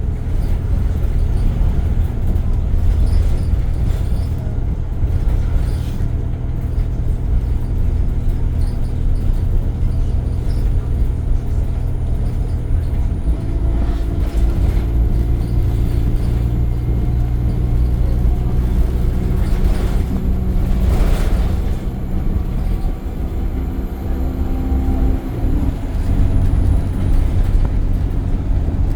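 ADL Enviro 200 bus running steadily. About 13 seconds in, its air compressor cuts in with a steady droning hum that sets a wall panel vibrating, then cuts out abruptly about 12 seconds later. A short hiss comes about 21 seconds in.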